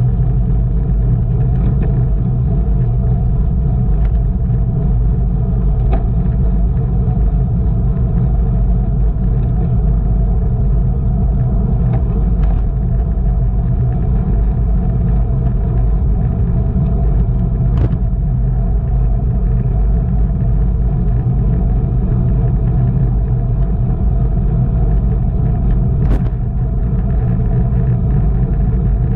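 Steady low rumble of wind and road noise on a camera riding along on a racing bicycle at speed, with a few faint ticks.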